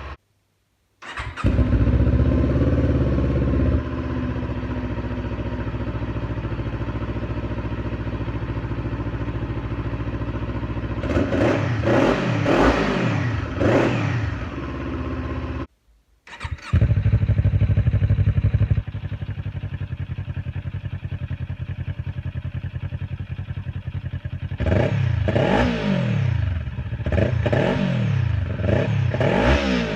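2018 Kawasaki Ninja 400's parallel-twin engine and exhaust, in two separate recordings: each time it starts up, settles into a steady idle and is then blipped several times, the pitch rising and falling with each rev. The second recording's revving runs longer, with about six blips near the end.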